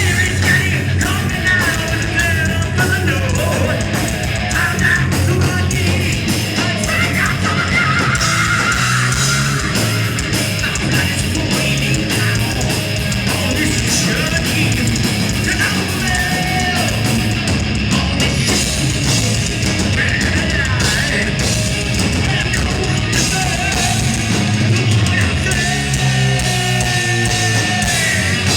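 Live heavy metal band playing loud, with distorted electric guitars, pounding drums and bass; a guitar lead weaves above the rhythm. Heard as an audience recording, loud and somewhat distorted.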